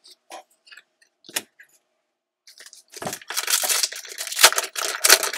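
A few light clicks, then a Panini Illusions basketball card pack's foil wrapper loudly crinkling and tearing as it is ripped open by hand, starting about two and a half seconds in.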